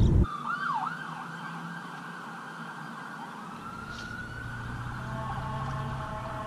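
A siren wailing, its pitch sweeping quickly up and down at first, then rising slowly and holding steady.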